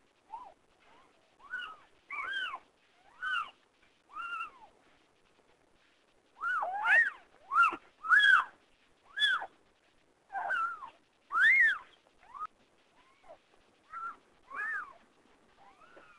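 Newborn kittens mewing: a string of short, high, squeaky cries, each rising and falling in pitch. They come in a thick, loud run in the middle and more sparsely at the start and end.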